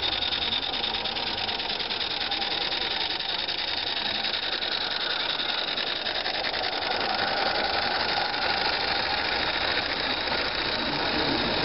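Small live-steam garden-railway locomotive running past with its train of wagons: a steady, hissing running noise.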